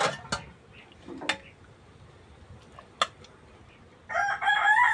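A few sharp clicks and knocks, then about four seconds in a rooster starts to crow loudly, with a wavering call.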